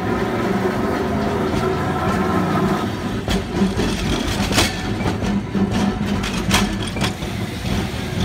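Hankai Tramway streetcar No. 355 running past close by with a steady low hum. Several sharp clacks from its wheels on the track come from about three seconds in.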